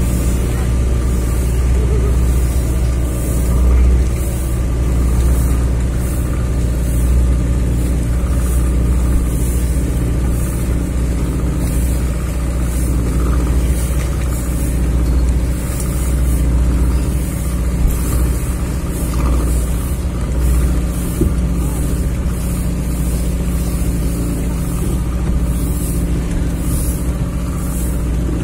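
Speedboat engine idling steadily at the jetty, a constant low running note.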